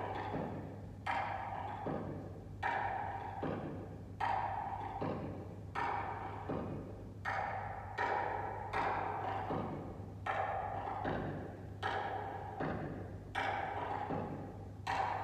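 Steady percussion beat for dance practice: hollow knocks alternating with low thuds, a little over one a second, over a faint steady hum.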